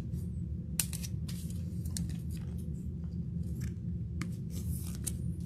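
Trading cards and a plastic top loader being handled: scattered light clicks and rustles over a steady low hum.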